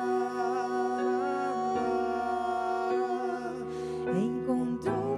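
A woman singing a slow, held melody with vibrato over sustained keyboard chords, the bass note changing twice.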